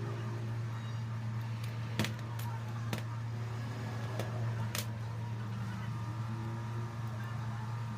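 A steady low hum with a few sharp clicks or taps, about five of them, between two and five seconds in.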